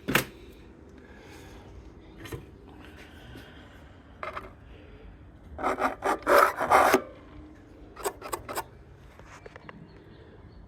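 Intermittent rubbing and scraping from hands handling the case and parts of an old electric organ, with a click at the start and a few more clicks later. The loudest stretch of scraping comes about six to seven seconds in.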